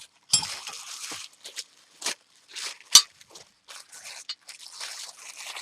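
Packaging rustling and crinkling as small steel pancake dies are unwrapped and handled, with scattered sharp clicks and taps, the loudest about three seconds in.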